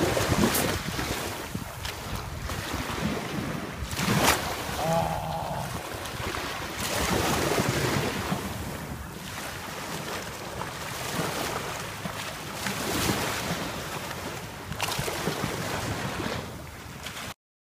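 Surf washing onto the beach with wind buffeting the microphone, the noise swelling and easing every few seconds. A sharp knock about four seconds in, and the sound cuts off suddenly near the end.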